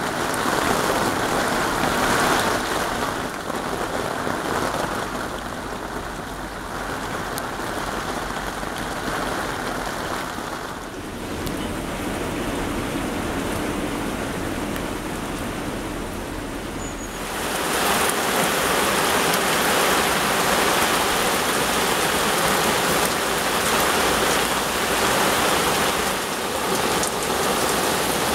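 Torrential rain pouring down steadily. The sound changes abruptly about 11 seconds in, and again about 17 seconds in, where it becomes louder and brighter.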